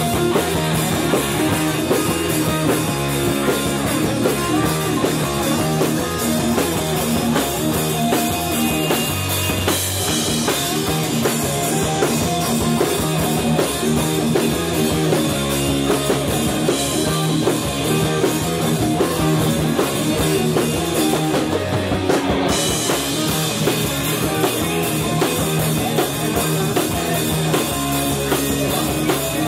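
Heavy metal band playing: electric guitar over a drum kit, loud and continuous, with the cymbals dropping out for about a second around two-thirds of the way through.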